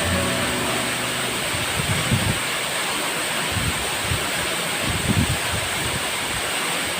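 Undolo waterfall rushing in a steady, continuous roar of water. Wind buffets the microphone in a few low swells.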